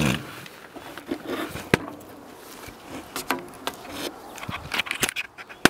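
Rustling and scraping with scattered knocks and clicks as the camera is handled against the metal side of an old railway car, with a sharp click near the end.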